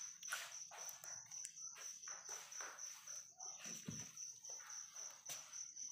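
Crickets chirping in a steady, rapid pulse, with short irregular scraping and tearing sounds as a ripe jackfruit's bumpy rind is pried apart by hand along a knife cut.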